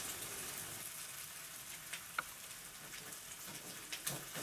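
French toast frying in melted butter in a nonstick pan, sizzling steadily. A few light clicks come from the plastic spatula pressing it, about two seconds in and near the end.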